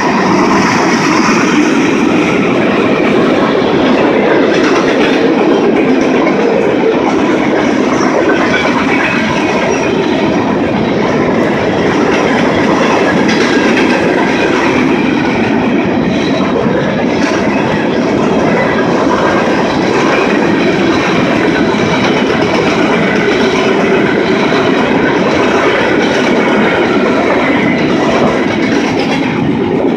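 Freight train of tank cars and covered hopper cars rolling past at speed: a steady, loud noise of steel wheels running on the rails.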